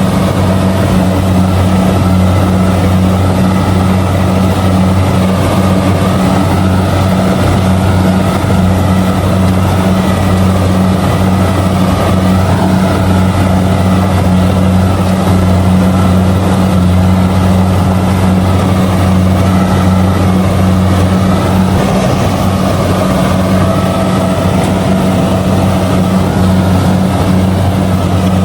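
Kubota DC70G combine harvester's diesel engine running steadily while harvesting rice: a constant drone that holds its pitch throughout.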